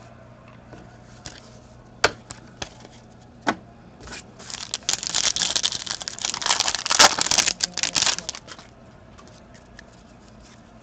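A few sharp clicks, then a foil trading-card pack being torn open and crinkled by hand. The crackling rustle lasts about four seconds around the middle.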